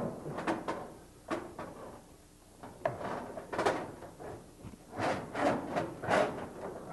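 Corrugated stainless steel gas tubing (CSST) being pulled through drilled holes, sliding and bumping: irregular scraping and knocking, with the loudest knocks in the second half.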